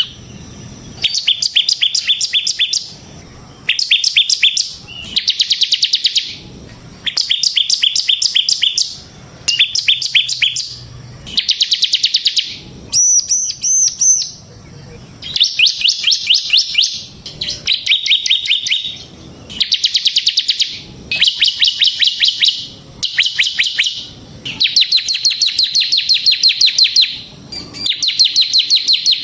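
Bar-winged prinia (ciblek) singing: repeated bursts of a fast, rattling trill, each lasting a second or two with short pauses between. Around halfway through comes one higher, warbling phrase. This is the rapid trill that bird keepers call ngebren.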